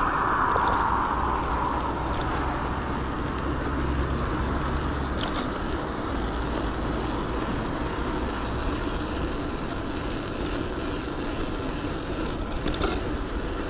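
Steady rush of wind on the camera's microphone and tyre noise from an electric bike riding along a road. The hiss is strongest in the first couple of seconds.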